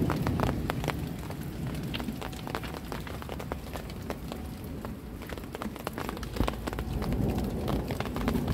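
Rain pattering, with many irregular sharp drop ticks over a steady low rumble.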